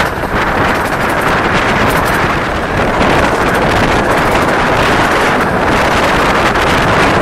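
Wind rushing over the microphone at the open window of a moving 15-inch gauge miniature railway train, over the steady running noise of the carriage on the track.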